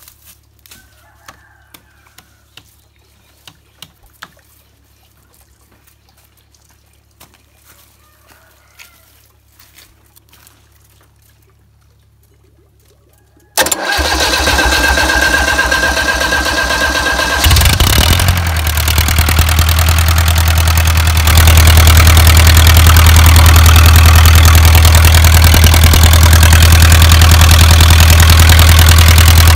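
Isuzu 4BA1 four-cylinder diesel engine being started. After a long stretch of faint clicks from handling the wiring, the starter motor cranks with a whine for about four seconds, the engine catches, and it settles into steady running, growing louder a few seconds later. It drives a directly coupled water pump.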